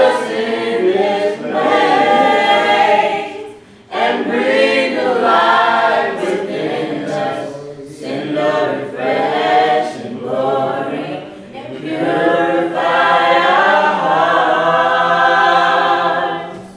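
A small church worship team of men and women singing together, in four long phrases with short breaks between them.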